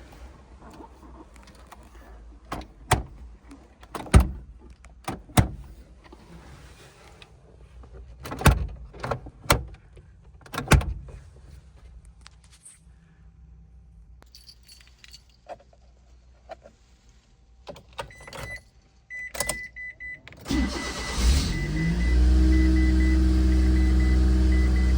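Keys jangling with clicks and knocks inside a car, then a repeating high warning beep as the ignition comes on, and the Nissan Clipper Rio's turbocharged engine cranks, catches about twenty seconds in, and rises to a steady idle.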